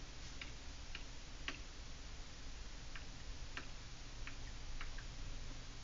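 Faint, irregular light clicks of a stylus tapping on a tablet screen during handwriting, over a low steady hum.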